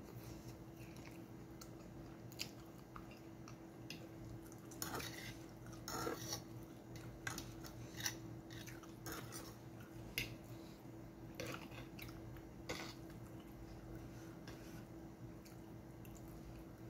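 Close mouth sounds of spaghetti being slurped and chewed, with scattered clicks and scrapes of a fork against a metal frying pan, busiest in the middle. A faint steady hum sits underneath.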